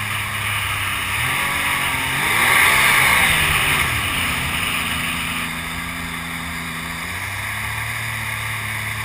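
Mini jet boat's engine running underway, revving up to a peak about three seconds in and easing back to a steady note, which drops lower again about seven seconds in; a steady hiss runs underneath.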